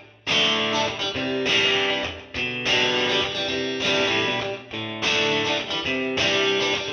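Guitar music, with chords struck about once a second.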